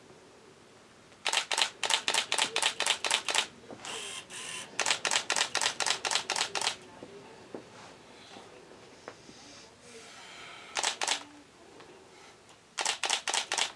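Camera shutter firing in rapid continuous bursts, about five clicks a second. There are four runs of clicks: a long one of about two seconds near the start, another soon after, a short one a little before the end, and a last quick run at the very end.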